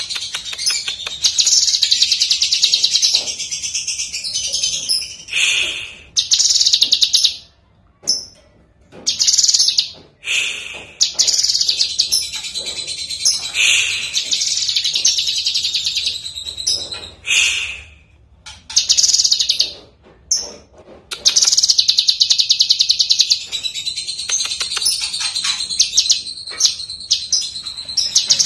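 Cucak kinoi, a leafbird, singing: phrase after phrase of high, fast trilling and chattering notes, with short pauses between phrases.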